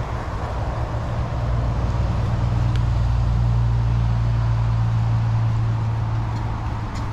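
Low engine rumble of a road vehicle passing by, swelling to a peak about halfway through and then fading away.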